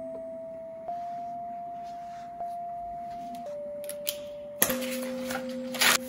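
Soft background music: a slow melody of pure, bell-like sustained notes over a low held note, stepping to a new pitch every second or so. Near the end there is a brief rustle of paper.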